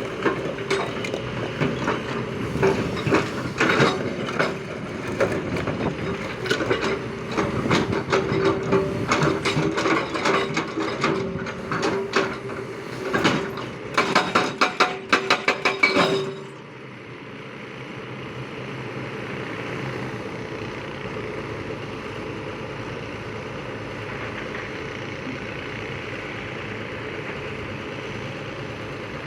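JCB digger at work with its engine running, clanking and rattling in rapid metallic knocks for about 16 seconds. The sound then switches abruptly to a steady, even engine noise.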